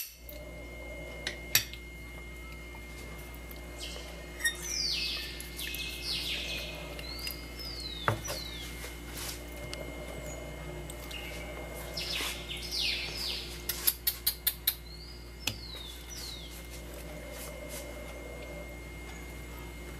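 A bird singing, repeating a phrase of quick falling chirps every several seconds, with a few sharp clicks and a quick run of about six clicks about two-thirds of the way through.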